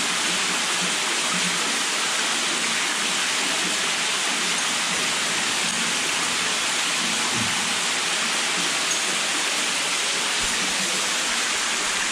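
Steady rush of water falling and splashing down a cave wall, an even hiss that does not change.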